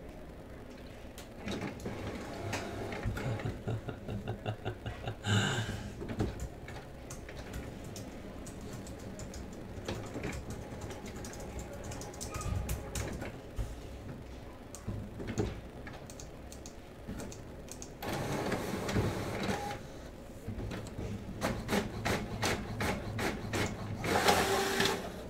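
Irregular light clicking and clattering of desk handling, with a louder clatter about five seconds in and two short rustling bursts near the end.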